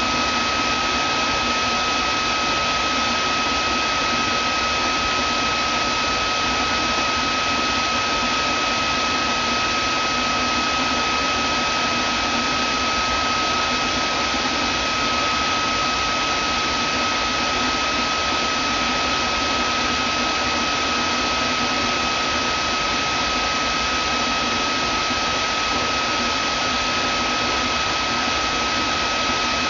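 Vacuum cleaner running steadily: an unbroken rushing of air with a constant high-pitched motor whine.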